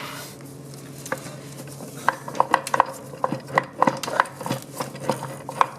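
Clutch plates and metal parts of a 700R4 automatic transmission clinking and clattering as the drum is tipped to dump the plates out: about a dozen sharp metallic clinks starting about two seconds in.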